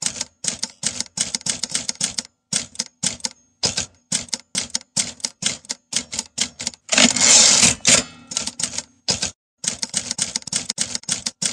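Typewriter keys being struck in quick irregular runs with short pauses. About seven seconds in there is one longer noisy stroke.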